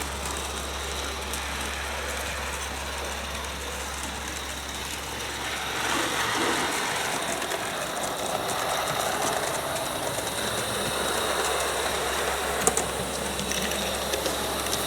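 Roundhouse Bertie-class 16mm live steam locomotive running on a garden railway track with its coaches rolling behind, getting louder about six seconds in as it comes closer.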